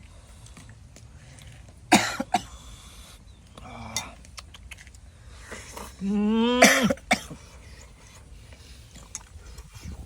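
A person's cough about two seconds in, then a held vocal sound, a groan or exclamation, around six seconds in that drops in pitch as it ends.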